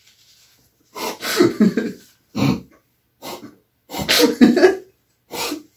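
Two men laughing in short, breathy bursts that start about a second in, with the loudest around four seconds in.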